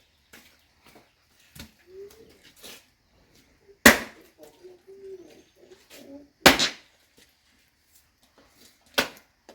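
Firewood being split by hand: three sharp chopping blows about two and a half seconds apart, the second and third coming near the middle and near the end.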